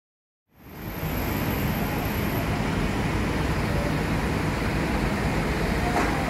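Steady road-traffic and street noise with a low rumble, fading in about half a second in.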